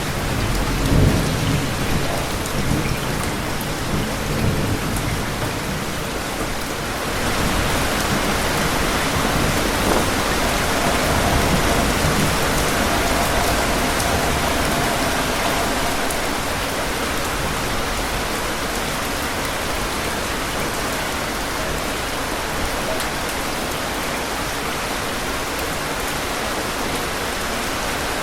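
Thunderstorm with steady rain falling on a surface. A low roll of thunder comes in the first few seconds, loudest about a second in. The rain hiss grows louder about seven seconds in and eases slightly after about sixteen seconds.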